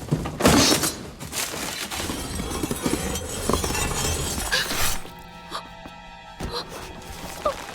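Film sound effects over a music score: a sudden loud crash about half a second in, then a few seconds of dense noise. After about five seconds the noise stops and quieter held music tones remain.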